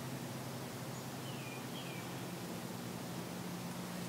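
Steady outdoor hiss with a low hum, and two short descending bird chirps about a second and a half in.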